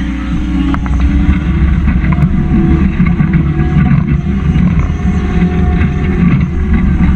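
John Deere 324G skid steer's diesel engine running steadily under load while pushing snow, with a few sharp clicks about a second in.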